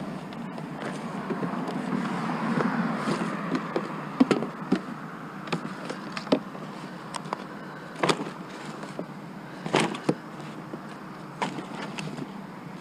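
Scattered knocks and clatters of scrap items being handled and set down, over a steady background hum.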